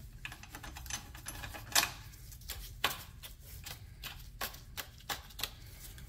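Irregular small metal clicks and taps as a wing nut is threaded by hand onto a screw holding an outboard motor's throttle cable bracket, the loudest about two seconds in.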